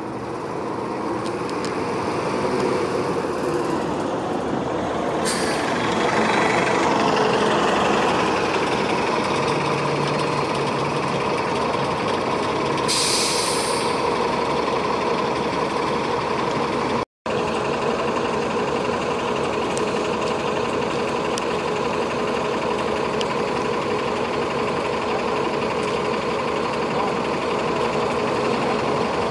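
Transit buses running at a stop, their engines humming steadily, with short air-brake hisses about five seconds in and again around thirteen seconds in. The sound cuts out for an instant a little past halfway.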